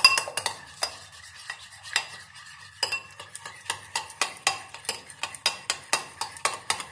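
Eggs being beaten with a metal spoon in a ceramic bowl, the spoon clinking against the bowl in quick strokes. The strokes are sparse at first and become fast and even, about four or five a second, from about three seconds in.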